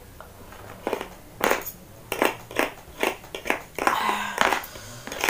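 Eating noises from a plate of instant noodles: a fork and spoon scraping and clicking on a plastic plate along with chewing, heard as a string of short, sharp noises, roughly two a second, starting about a second in.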